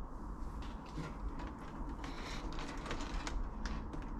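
Electrical wires and plastic connectors of a wiring loom being handled on a wooden workbench: irregular light clicks and rustling.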